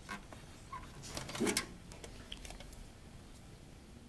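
Small clicks and knocks from handling the parts and cable plugs of a disassembled Xbox 360, with a short louder clatter about a second and a half in.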